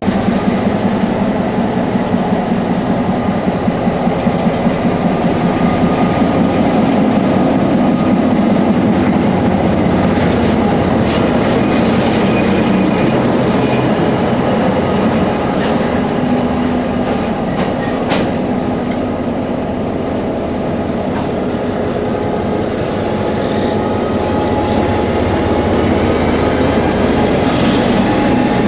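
Tranz Rail DC-class diesel-electric locomotives running at close range: a loud, steady diesel engine sound with a regular pulsing in the first few seconds. Thin high squeals come in briefly around the middle, and a single sharp metallic clank follows a few seconds later.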